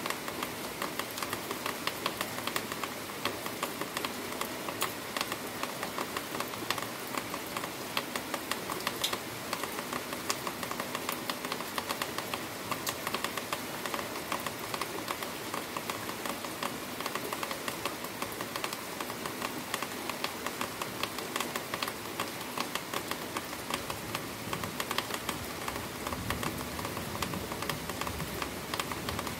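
Very heavy rain falling, a dense steady hiss made of many fine pattering drop clicks. A low rumble of thunder begins to build near the end.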